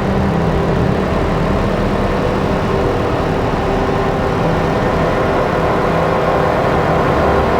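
Dense electronic drone from a Make Noise Strega synthesizer and Meng Qi Wingie layered with looped drones: a thick bed of many held tones over a low rumble and a noisy hiss, steady throughout.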